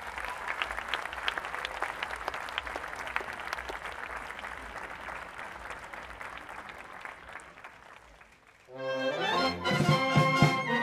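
Audience applauding, the clapping slowly dying away over about eight seconds. About nine seconds in, a concert wind band comes in loudly, brass to the fore.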